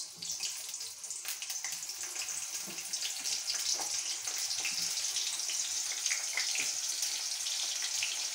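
Halved raw potatoes sizzling as they are slid into hot oil in a wok, a steady hiss with small crackles that grows louder as more pieces go in.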